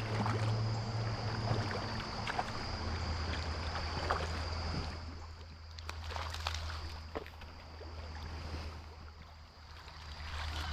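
Creek water running steadily, with a few faint clicks and knocks.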